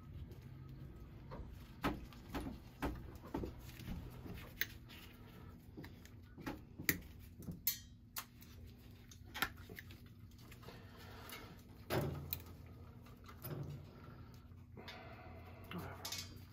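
Irregular light clicks, snips and taps of pliers and wire strippers on thin thermostat wire, with a few sharper clicks and a short rapid clicking run about midway.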